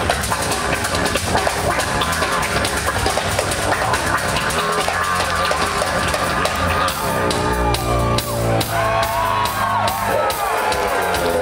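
Rock band playing live through the venue PA, with drum kit and electric instruments, as heard from the crowd. About seven seconds in the dense playing thins to a held low note under sliding, bending notes.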